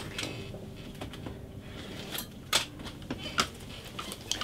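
Plastic bag being slit open and handled: light crinkling with a few sharp ticks and crackles, irregularly spaced.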